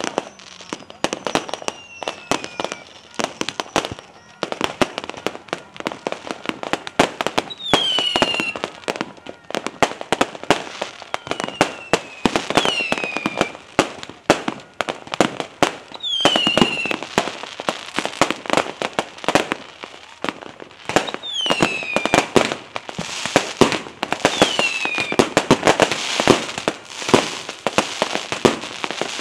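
Fireworks going off: a dense run of bangs and crackling pops, with several whistling shells whose high whistle falls in pitch. The crackling thickens into a denser barrage near the end.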